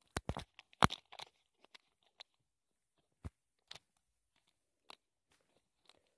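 Playtex Sport tampon's plastic wrapper crinkling and being torn open by hand: a quick cluster of sharp crackles in the first second, then single crinkles every second or so.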